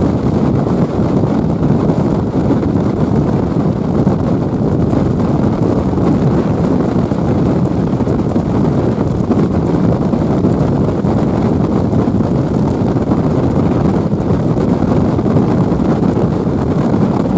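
Gale-force storm wind buffeting the microphone on a car ferry's open deck, a loud steady rumble, with rough sea rushing and breaking along the ship's hull.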